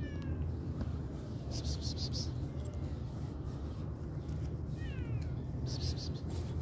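Cat meowing faintly, two short falling calls: one at the start and one about five seconds in. A steady low rumble and a few short bursts of high hiss run underneath.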